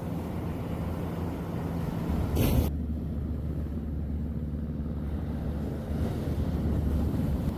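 Low rumbling wind noise buffeting the microphone on a beach walk, with surf beneath it, and a brief louder rush about two and a half seconds in.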